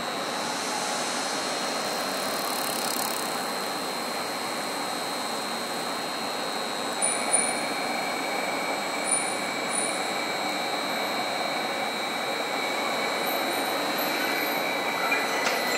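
Electric commuter trains standing at a station platform: a steady hum under an even high whine, with a second, lower whine joining about halfway through and a few faint knocks.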